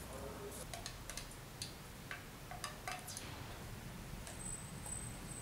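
Light, scattered clicks and taps of a wooden stirring stick knocking against a small steel pot of melted wax, with a faint high steady tone briefly near the end.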